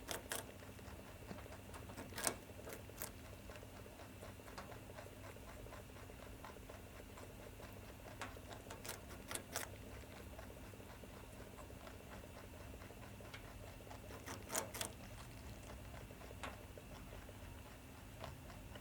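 Faint, scattered clicks and taps from a Holland Lop rabbit moving about, over a steady low hum. The taps come singly and in pairs, spread several seconds apart.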